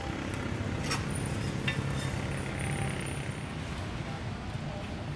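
Street-stall background: a steady low rumble of road traffic, with a few sharp clicks about a second in and again near two seconds.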